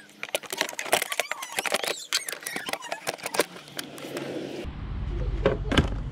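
The plastic air filter housing lid of a BMW E39 520d being pressed and fitted into place: a quick run of plastic clicks, knocks and squeaks. About two-thirds of the way through it gives way to a steady low rumble with a few sharp knocks.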